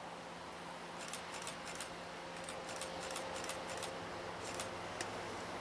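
MBTA commuter train approaching on the rails: a faint, gradually growing rumble with a faint steady tone and a scatter of sharp, high ticks.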